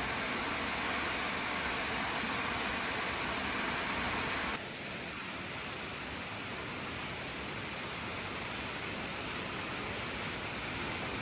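Steady rushing roar of Nachi Falls, a very tall waterfall. About four and a half seconds in, the sound turns abruptly a little quieter and duller, then runs on steady.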